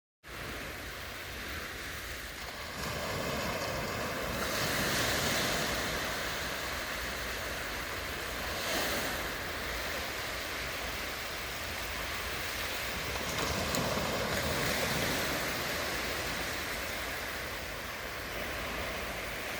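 Sea waves breaking and washing up the shore in repeated surges, with wind buffeting the microphone.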